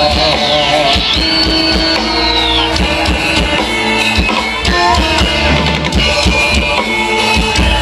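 Javanese gamelan music with drums: steady drumming under sustained tuned metal percussion notes, the accompaniment for a barongan dance. A high sliding tone sounds over it about one to three seconds in.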